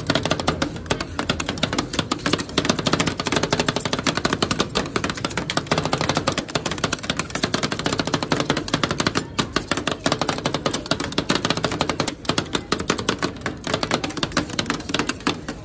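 Metal spatulas rapidly chopping and scraping ice cream mix on a frozen steel plate: a fast, continuous clatter of blade strikes on the metal, making rolled ice cream.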